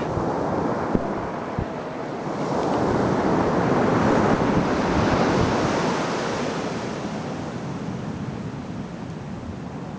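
Surf washing onto the beach, with wind buffeting the microphone. The surf swells louder for a few seconds in the middle, and there are two brief knocks about a second in.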